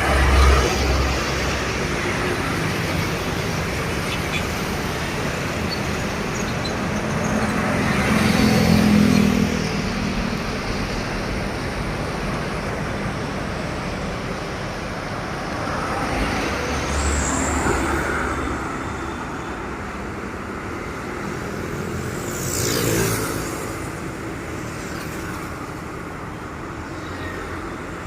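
Busy road traffic: a steady hum of engines and tyres, with vehicles passing close by one after another. The loudest passes come at the start, with a heavy low engine rumble about eight seconds in, around seventeen seconds, and a quick pass near twenty-three seconds whose pitch drops as it goes by.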